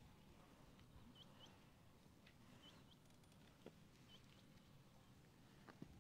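Near silence: faint outdoor ambience with a low wind-like rumble, a few short high chirps in the first half and a couple of soft clicks near the end.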